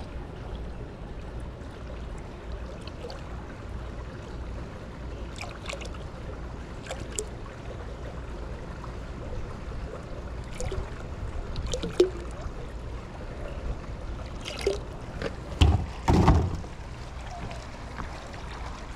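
Liquid pool chemical poured from a plastic gallon jug, trickling and splashing into the pool water over a steady low rumble. Scattered light knocks of plastic jugs being handled, and a louder pair of thumps about three-quarters of the way through.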